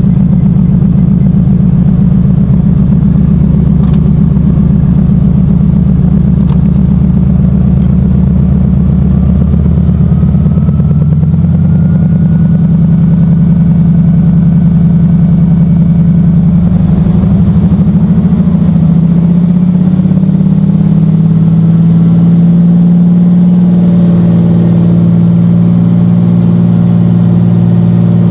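DeHavilland DHC-2 Beaver's Pratt & Whitney R-985 Wasp Junior radial engine and propeller, heard from inside the cockpit. It runs loud and steady with a low pulsing beat, and its note shifts pitch about ten seconds in and again a little later as the power setting changes.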